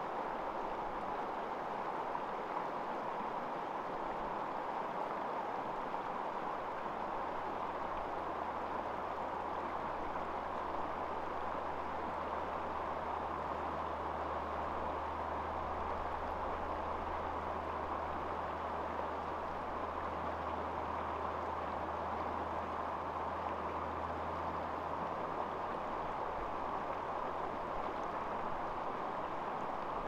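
Shallow river rapids rushing over rocks in a steady, even wash of water. A low steady rumble joins under it from about eight seconds in and fades out a few seconds before the end.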